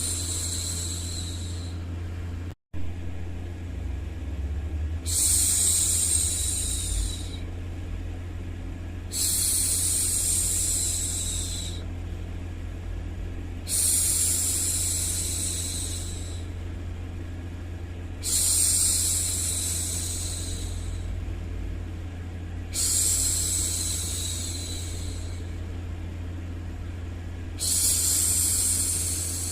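A woman's voice hushing 'shhh' six times, each hush about two seconds long and coming every four to five seconds, over a steady low white-noise hum. The sound drops out for a split second about two and a half seconds in.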